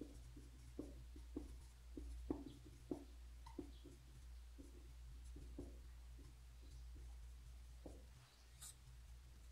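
Marker pen writing on a white board: faint, irregular short strokes and squeaks as symbols are drawn, over a steady low hum.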